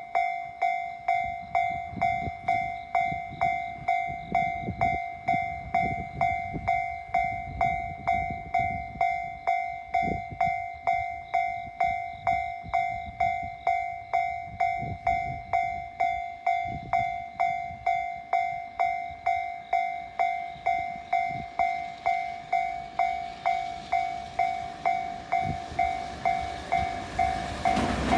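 Japanese level crossing warning bell ringing in an even two-tone clang about twice a second. Near the end the noise of an approaching freight train grows beneath it.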